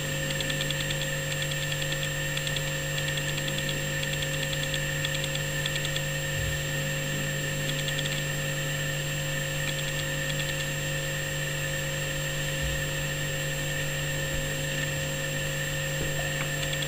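A steady machine hum: a constant low drone with a higher steady tone over it, and faint rapid high ticking now and then.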